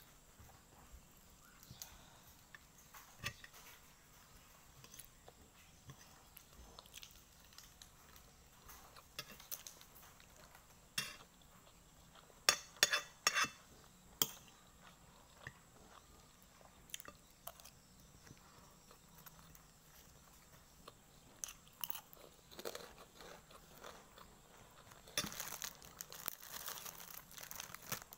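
Eating sounds: a spoon and fork clinking and scraping on a plate of fried rice, with chewing and crunching. A quick run of sharp clinks about halfway through is the loudest part, and a longer spell of crunching comes near the end.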